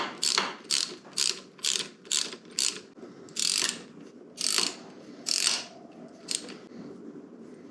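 Socket ratchet wrench clicking in quick short strokes, about three a second, while a fastener is wound out during disassembly. Three longer runs of ratcheting follow, then one last click.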